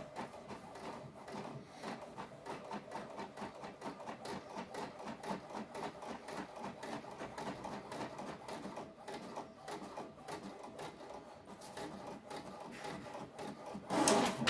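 HP DeskJet Ink Advantage 2337 inkjet printer printing a colour test page: the print-head carriage shuttles back and forth with a fast, continuous run of ticks as the paper feeds through. It grows briefly louder near the end.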